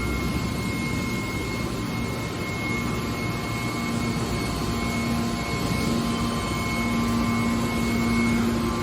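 Hydraulic scrap metal baler running: steady machine noise with a thin high whine and a low hum that grows stronger about four seconds in.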